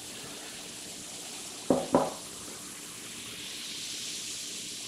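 Baking soda and vinegar fizzing: a steady hiss of bubbles popping in the foam, swelling a little past the middle. Two short knocks come close together a little under two seconds in.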